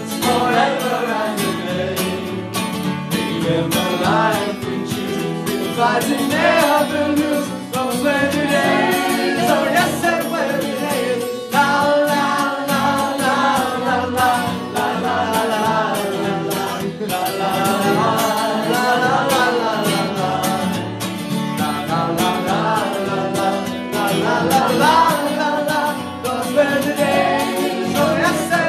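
A man singing a folk melody while strumming a steel-string acoustic guitar, the voice and guitar continuous throughout.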